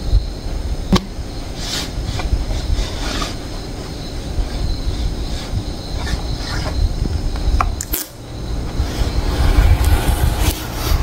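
Cardboard gift box being opened and a clear plastic tray of Ferrero Rocher chocolates slid out and handled, giving scattered clicks and rustles over a steady low rumble.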